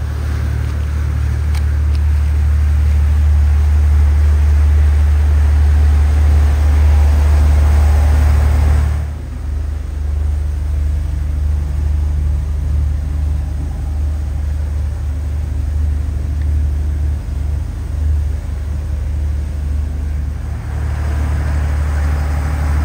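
Power catamaran under way: a loud, steady low rumble of wind, water rushing along the hull and engine. It drops a little about nine seconds in.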